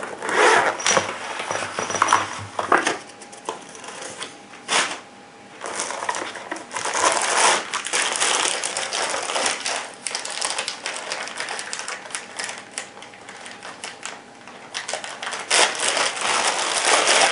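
Packaging and accessories being handled by hand: rustling and crinkling with many small clicks and taps, loudest in two stretches in the middle and near the end.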